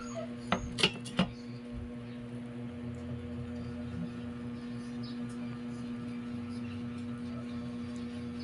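Air fryer running, its fan giving a steady hum. Three sharp clicks come about half a second to a second and a quarter in.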